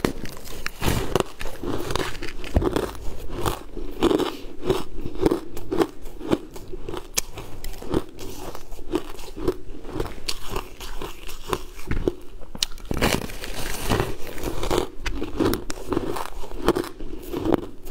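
Bites into a purple, waffle-shaped block of frozen sweet ice and chews it: a bite near the start, then a steady run of crisp crunches about twice a second.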